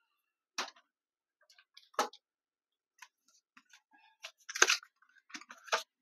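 Handling noise: scattered clicks and light clatter of a sheet-metal hard-drive caddy being turned over in the hands, and an SSD being taken from its box. The loudest clatter comes a little past halfway.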